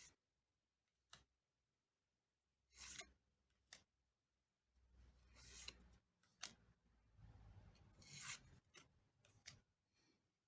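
Pokémon trading cards being handled: faint, scattered sliding and rubbing swishes as cards slide over one another, with a couple of longer strokes in the middle.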